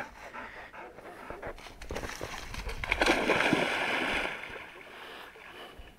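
A dog plunging into a river: a big splash about three seconds in, then water sloshing as it swims off.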